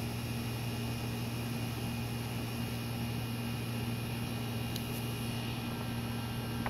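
Steady distant rumble of a Boeing 757 jetliner flying at high altitude, heard together with a steady low hum.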